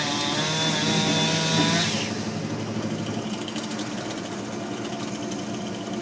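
Two-stroke chainsaw running at full throttle, then dropping about two seconds in to a lower, uneven idle as the throttle is let off.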